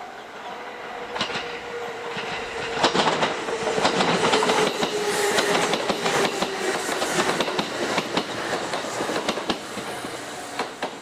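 Electric train passing through the station, its wheels clacking over rail joints and points, with a motor whine that slowly falls in pitch. The train gets louder from about a second in and fades near the end, and a repeating ringing tone is heard at the start and again as it fades.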